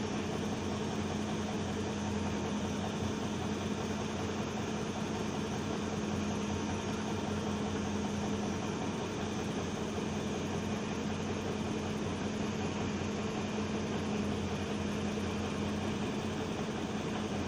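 Heavy machine's engine running steadily at a constant speed, a low even hum with no change in pitch or level.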